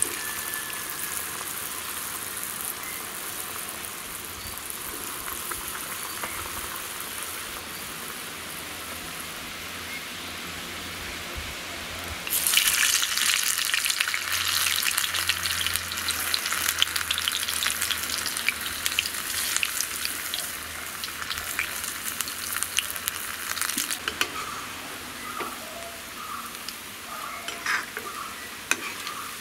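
Banana bonda batter balls deep-frying in hot oil in a kadai, a steady sizzle. The sizzle grows much louder a little under halfway through, eases off again after about ten seconds, and ends with scattered crackles.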